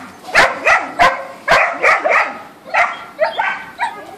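A dog barking over and over in short, sharp barks, about three a second.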